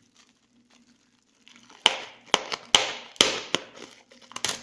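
Plastic wrapping being torn open and crinkled by hand: quiet at first, then from about a second and a half in a run of sharp, loud crackles and rips.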